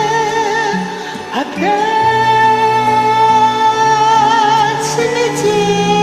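Sung vocal over a karaoke backing track: long held notes with vibrato, with a brief dip and an upward slide into a new sustained note about a second and a half in.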